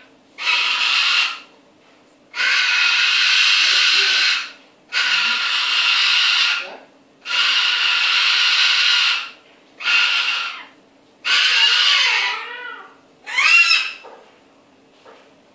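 Cockatoo giving a series of about seven long, harsh screeches, one after another with short pauses; the last couple waver up and down in pitch, which the owner takes for the bird mimicking someone.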